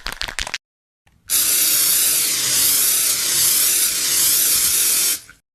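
A short crackle of clicks, then a loud, steady hiss lasting about four seconds that stops abruptly.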